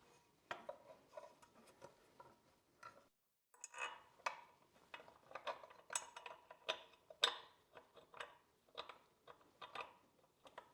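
Light, irregular metallic clicks and clinks of skid-plate brackets and M6 bolts being handled and hand-threaded into place.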